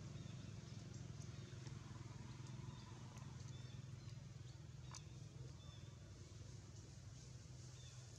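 Faint outdoor ambience: a steady low hum under a quiet hiss, with a few faint, short high chirps and an occasional small click.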